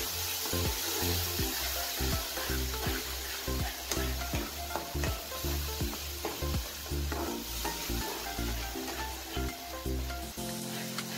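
Onion and tomato-purée masala sizzling in hot oil in a nonstick kadai, a steel spatula stirring and scraping it in short repeated strokes as it is fried down. Soft background music runs underneath.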